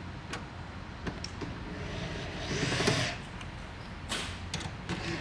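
A power drill/driver runs in one short burst a little over two seconds in, driving in a bolt that mounts the recliner mechanism to the seat's rail system. Light clicks and knocks of metal parts being handled come before it.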